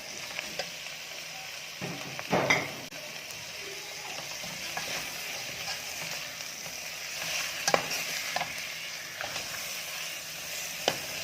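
Kroeung paste, minced pork and fried fish sizzling in hot oil as they are stir-fried, with a utensil scraping and knocking against the pan a few times.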